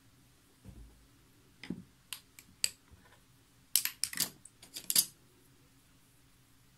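An eyeshadow palette and brush being handled: a run of sharp, separate clicks and clinks of hard plastic, busiest and loudest about four to five seconds in.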